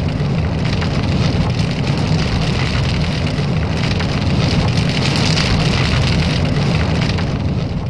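Steady, dense crackling and hissing noise over a low rumble, with no single event standing out.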